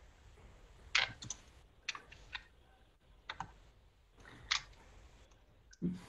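Computer mouse clicking: about eight short, sharp clicks at irregular intervals, with a duller knock near the end.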